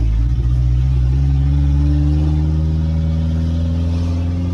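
A 1997 Nissan's engine heard from inside the cab, pulling in gear as the vehicle accelerates. Its pitch rises steadily from about a second in.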